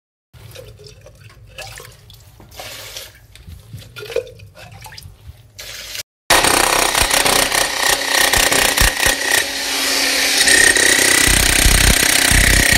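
Water rushing loudly in a flooded basement floor pit, with a faint steady whine in it. It starts suddenly about halfway through; before that there are only faint handling sounds.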